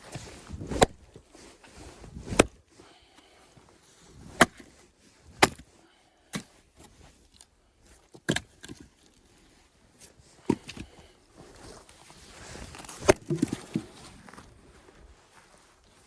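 Axe striking firewood: about eight sharp, loud chops at uneven intervals, with quieter handling and rustling between them.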